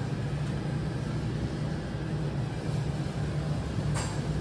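Steady low hum and hiss of refrigerated display cases, with one sharp click near the end.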